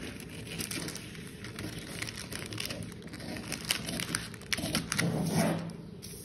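Large tailor's scissors cutting through a thin sheet of pattern paper along a curved neckline: quick snipping clicks with paper crinkling. The sheet rustles louder as it is lifted and smoothed flat near the end.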